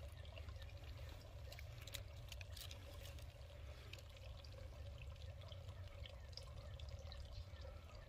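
A thin stream of water falling from a dead tree limb into a swamp pool: a faint, steady trickle.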